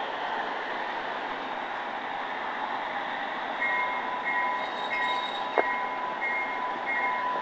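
Garden-scale model train running on its track: a steady rolling rush, joined about halfway through by a thin, high wheel squeal that cuts in and out, with a single sharp click near the end.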